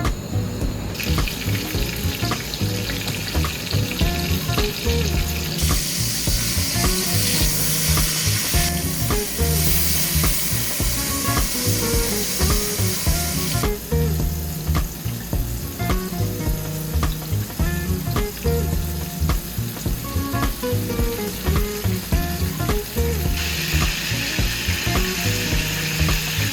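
Food sizzling in a hot frying pan over background music. The sizzle starts about a second in, grows louder for several seconds, stops about halfway, then comes back near the end.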